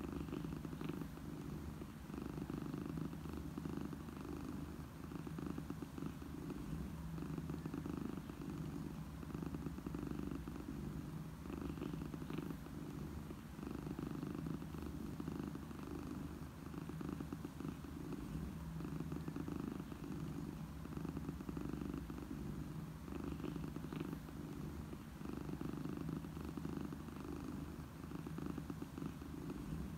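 Domestic cat purring, a steady continuous low purr that swells and eases in a slow rhythm every few seconds: the sound of a contented cat.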